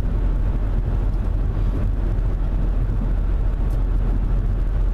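Steady low rumble of a car driving along, engine and tyre noise as heard inside the cabin.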